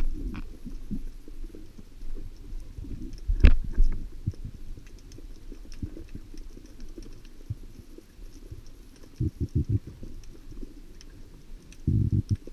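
Underwater sound as heard through a camera housing: low, irregular rumbling and scattered knocks from water moving against it, with one sharp knock about three and a half seconds in and bursts of low thuds near the end.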